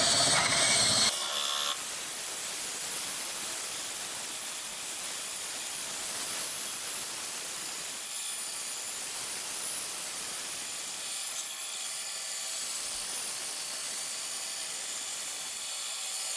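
A 100-grit sanding belt on a rigid block rubbing against a wooden cylinder spun by a cordless drill, a steady hiss over the drill's faint motor whine. The drill is louder for about the first second. This is the sanding pass that takes off the chatter marks left by the router.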